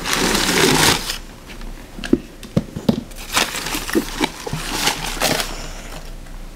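Tissue paper in a shoebox rustling and crinkling as hands unfold it. It is densest in the first second, then comes in scattered short crackles.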